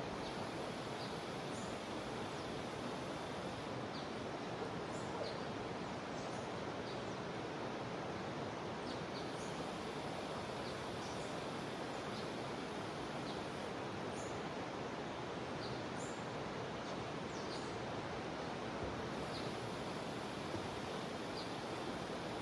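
Steady rush of a jungle river, with short high chirps from birds or insects scattered through it.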